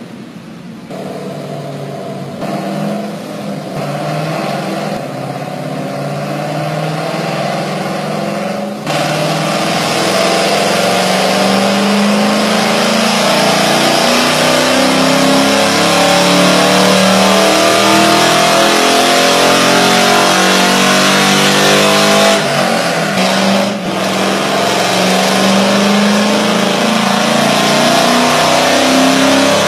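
Ford Mustang GT's 4.6-litre V8 running under load on a chassis dyno for a power run, its pitch climbing in steps as it revs up. It grows louder over the first several seconds, jumps in loudness about nine seconds in and stays loud at high revs, with a brief dip about three-quarters of the way through.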